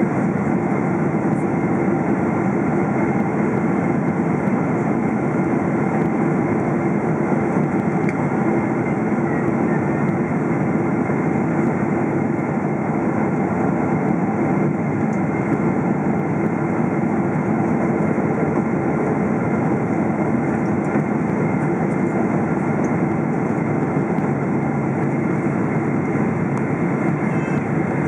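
Steady cabin noise inside a Boeing 777-300ER on its approach to land: the drone of its GE90 engines mixed with air rushing past the fuselage, even and unchanging.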